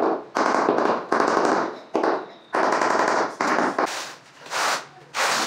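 Rubber mallet tapping a large ceramic floor tile down into its mortar bed, in bursts of quick taps that start and stop sharply. About four seconds in the bursts turn shorter and brighter.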